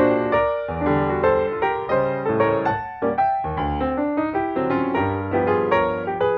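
Background piano music: a run of struck notes, several a second, each dying away.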